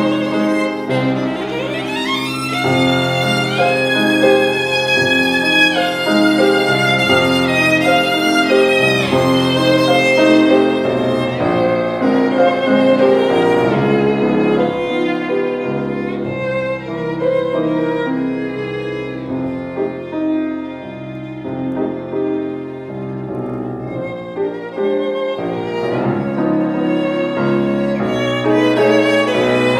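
Violin and piano playing classical music live: the violin carries the melody over piano chords from an August Förster grand. About two seconds in the violin slides up to high, held notes with vibrato; the music grows softer for a few seconds around twenty seconds in.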